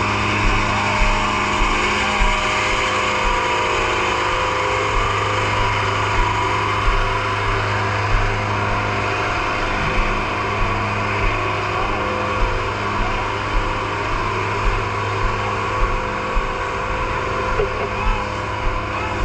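An engine running steadily with a constant hum, under broad noise, with irregular dull low thumps about one or two a second.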